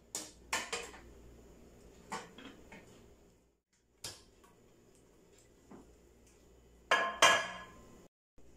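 Metal baking tray and glass baking dish clattering together as the tray is laid over the dish and the two are turned over to turn the kunafeh out. Several sharp knocks come in the first second and a few lighter ones follow. A louder, ringing double clatter comes about seven seconds in.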